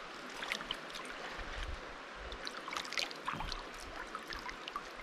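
River water flowing and splashing, with scattered small splashes and a few low bumps.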